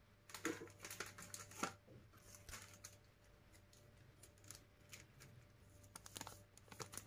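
Faint, scattered light clicks and taps over a low steady hum, close to silence, bunched in the first two seconds and again near the end.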